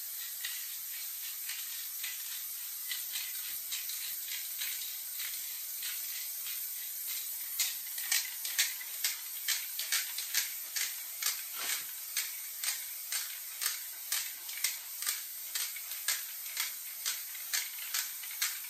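Aerosol spray-paint can hissing as paint is sprayed onto a panel. About halfway through, the hiss takes on a regular pulsing, roughly twice a second.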